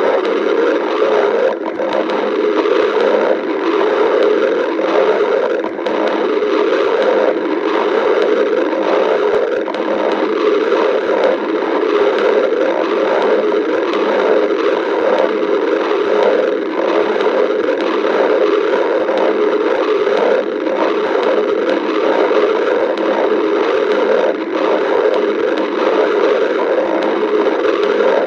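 Cartoon stomach-growling sound effect: a loud, unbroken rumble with a rapid fluttering texture that keeps going without a pause.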